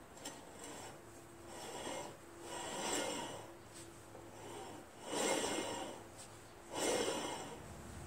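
Troy-Bilt lawn tractor mower-deck blade and spindle turned by hand in short pushes, a dry rubbing whir four times, each under a second long. It is being spun to check for bent spindles.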